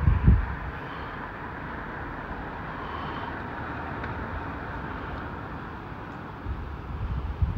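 Steady rumble of an approaching electric train, a Class 720 multiple unit, heard before it comes into view. Wind buffets the microphone in gusts at the start.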